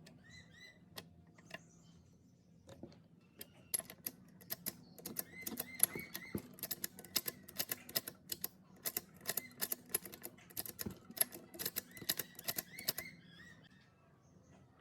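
A rapid, irregular run of sharp clicks and taps that starts about three seconds in and stops near the end. Birds chirp now and then behind it.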